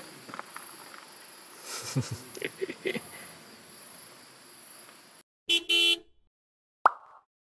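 Two short car-horn toots in quick succession, then a single sharp click. Before them there is faint night-time outdoor background with a few light knocks and rustles.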